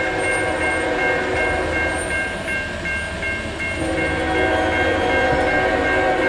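Railroad grade-crossing bell ringing in an even, repeating pattern as the crossing gates come down. About four seconds in, the horn of the approaching CSX freight locomotive begins sounding underneath it.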